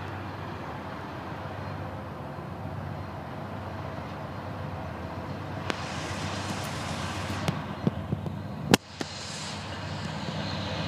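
Norfolk Southern GE C40-9W and C40-8W diesel locomotives approaching under power, their engines rumbling and slowly growing louder. A few sharp clicks come in the second half, the loudest about nine seconds in.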